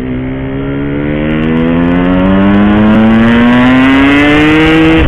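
Yamaha RX-King's 135 cc two-stroke single-cylinder engine held at full throttle, accelerating hard through one gear. Its pitch rises steadily and it grows louder, with no sign of seizing.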